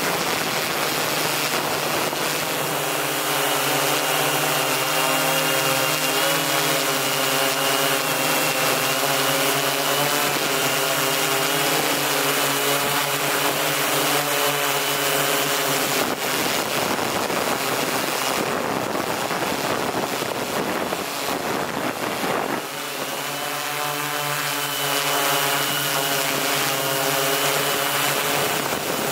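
M690L multirotor drone in flight, its motors and propellers making a steady buzz with a wavering high whine. About two-thirds of the way through, the buzz breaks into a rougher rushing noise for a few seconds, then returns.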